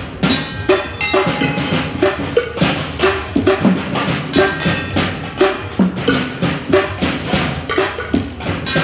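Two drummers playing a fast, steady improvised rhythm with drumsticks on found metal objects: a metal jerry can, tins and pans. The hits are dense and sharp, with short metallic rings between them.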